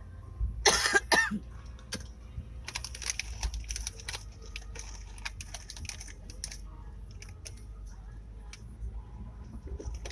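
A short, loud cough-like vocal sound about a second in. It is followed by a few seconds of light, rapid clicking over a steady low rumble.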